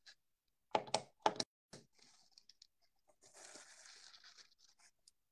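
Two short knocks on the desk about a second in, then a stretch of paper rustling and a pen scratching on paper.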